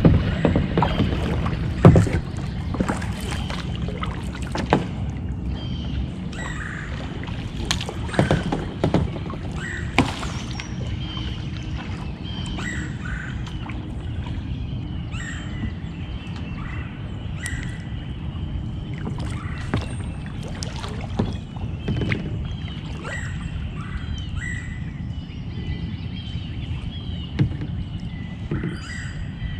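Kayak paddling: paddle blades dipping and splashing through the water, with a few sharp knocks of paddle on hull, the loudest about two seconds in. Birds call in short repeated chirps in the background.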